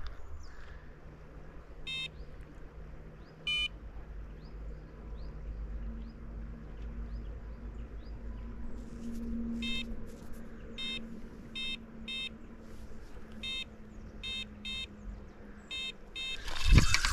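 Electronic fishing bite alarm beeping in short tones: two lone beeps, then a run of beeps over the second half as a fish pulls at the line.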